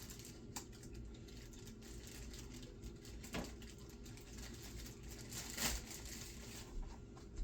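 Light rustling and a few soft knocks as kitchen items are handled, over a low steady hum; the clearest knocks come about half a second in, near the middle and a little before the end.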